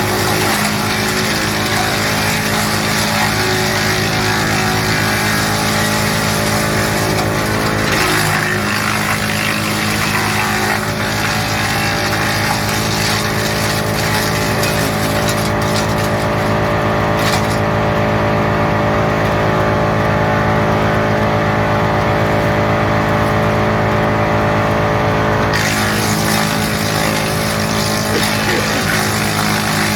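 GL&D M175DS tractor-mounted woodchipper running at full speed on the tractor's drive, with a steady engine hum under the harsh noise of birch and walnut being chipped. The harsh chipping noise drops away for about ten seconds midway, leaving the machine running on its own, then returns.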